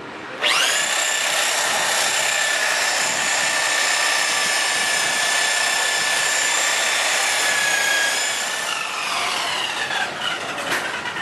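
Electric buffer/polisher spinning up about half a second in, running at a steady high whine while buffing a motorcycle headlight, then winding down with falling pitch near the end.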